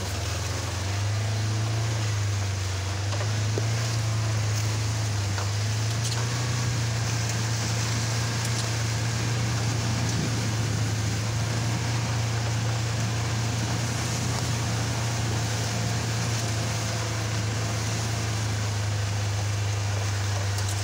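Off-road buggy's engine running at a steady low drone while driving, with an even rushing hiss underneath.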